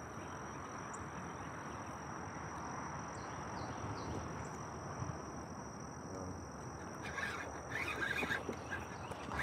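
Faint waterside ambience: a steady outdoor hiss with a thin, steady high insect drone. During the last two seconds, irregular scratchy handling noise from the rod and reel close to the microphone.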